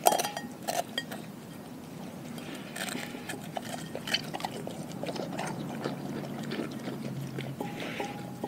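Doberman eating raw food from a glass bowl: wet slurping, licking and mouthing sounds, broken by many sharp clicks, the loudest right at the start.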